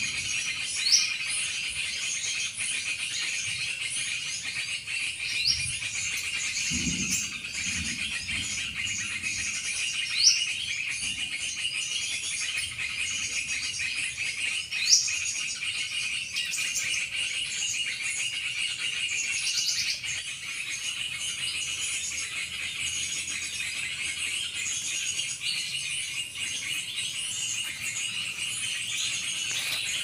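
A bird gives short, rising whistled calls, five of them about five seconds apart, over a steady insect chorus.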